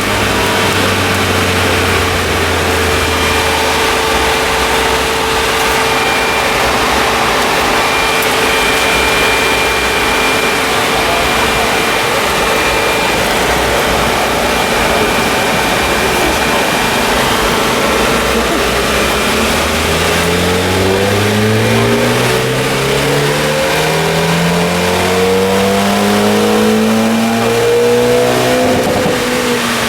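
Car engine running with a steady drone, then from about two-thirds of the way in revving up slowly and evenly for about nine seconds under load and dropping back off near the end.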